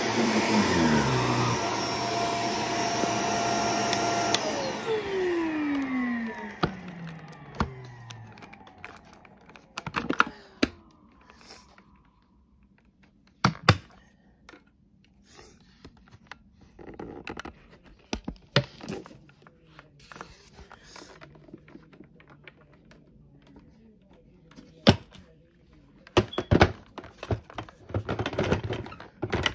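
Upright bagless vacuum cleaner running on carpet, then switched off about four seconds in, its motor winding down with a long falling whine. Scattered clicks and knocks follow as the vacuum's dust cup is handled, with a rustling patch near the end.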